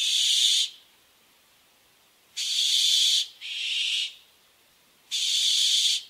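Andaman masked owl giving harsh, hiss-like screeches: four calls each under a second long, the second and third almost back to back.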